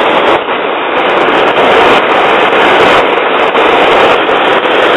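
Handheld gas torch burning with a loud, steady noise while its flame heats a rusted, seized nut to free it.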